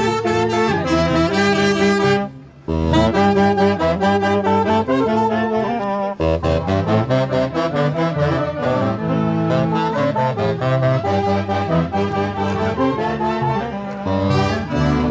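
Band music with horns playing a tune over a steady beat. The music breaks off briefly about two and a half seconds in.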